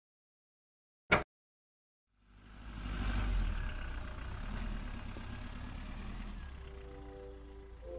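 A single sharp click, then a cartoon car's engine sound effect starting about two seconds in and running steadily as the car drives off. A few music notes come in near the end.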